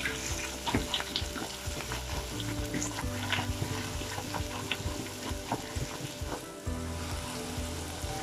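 Chopped onions and ginger-garlic paste sizzling in hot oil in a pot, with a slotted spatula scraping and clicking against the pot again and again as it stirs.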